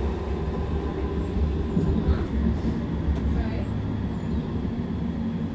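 Metrolink tram running, heard from inside the carriage: a steady low rumble, with faint passenger voices.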